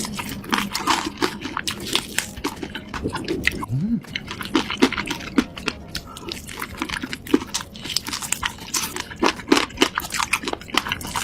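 Close-miked chewing of food, with many short, irregular mouth clicks throughout and a short rising tone about four seconds in.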